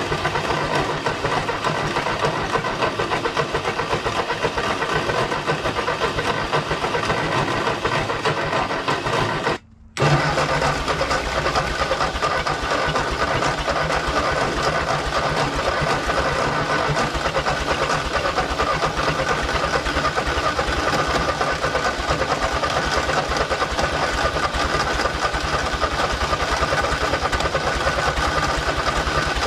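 Ford 8N tractor's four-cylinder flathead engine running steadily, with a brief drop about ten seconds in. The owner wonders whether its exhaust is stopped up, since it is blowing mouse droppings and debris out of the pipe.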